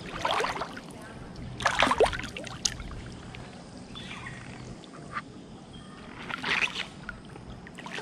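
Water splashing in three short bursts as people swim along a stream, with a low steady wash of water between them.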